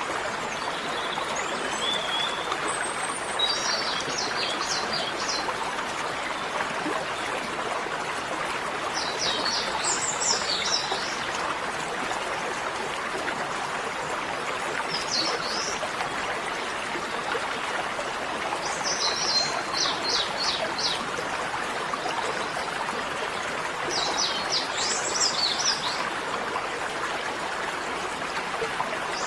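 Steady rush of running water, with a small bird giving short bursts of high chirps, a phrase about every four to five seconds.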